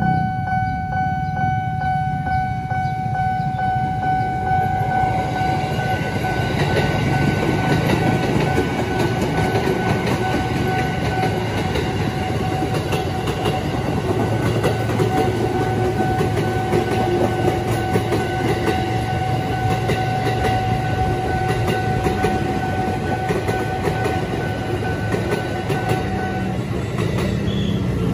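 JR 205 series electric commuter train passing close by, its wheels clattering over the rail joints with a steady rumble. A level-crossing warning signal sounds as one continuous two-note tone over it and cuts off near the end.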